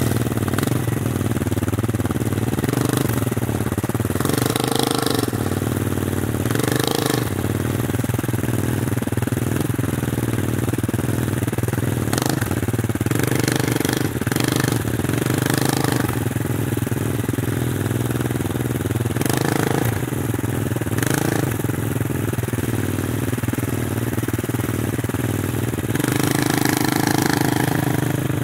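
Snow bike engine idling steadily, with several brief louder surges as the throttle is blipped.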